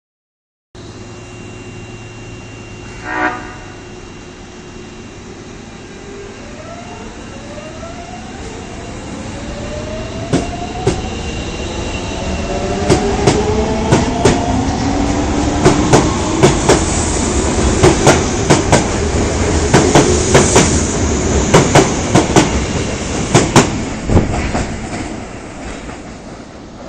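Osaka subway Tanimachi Line train 22962F sounds a short blast of its odd-sounding horn about three seconds in, then pulls away. A rising whine builds as it accelerates, and wheels clack rapidly over the rail joints, loudest as the cars pass, before the sound fades near the end.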